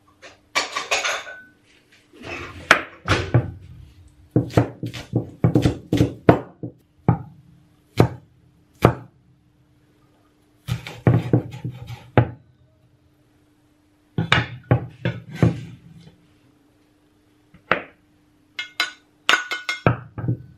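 Chinese cleaver chopping scallion on a wooden chopping board: sharp knocks in uneven runs with short pauses between. Near the end the blade knocks against a ceramic bowl as the chopped scallion is scraped off into it.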